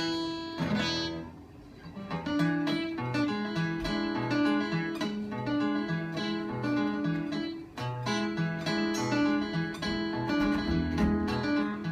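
Live music at a sound check: a plucked string instrument picks out notes in a steady rhythm, with no singing.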